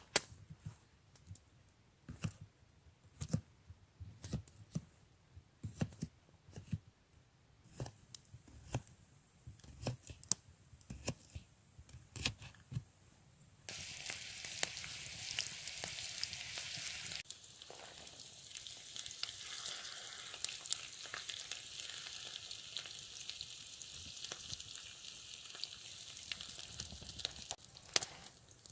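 Knife work on a split log: a run of sharp knocks, roughly one a second. About halfway through, potato slices start sizzling in a frying pan over an open wood fire, a steady hiss that drops a little in level a few seconds later.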